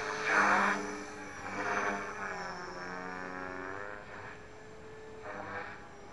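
Align T-Rex 450 Pro electric RC helicopter flying: the whine of its motor and rotor, rising and falling in pitch, with loud surges about half a second in, near two seconds and again near the end.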